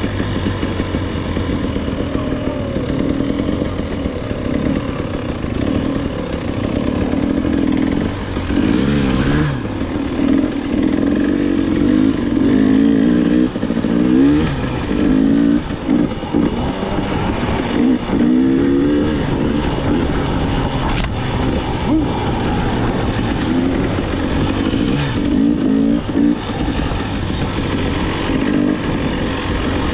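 KTM 300 two-stroke dirt bike engine under way on a trail, its revs rising and falling over and over with the throttle, with quicker up-and-down revs from about a third of the way in.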